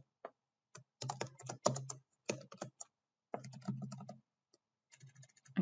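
Typing on a computer keyboard: short runs of keystrokes with brief pauses, and a gap of under a second near the end.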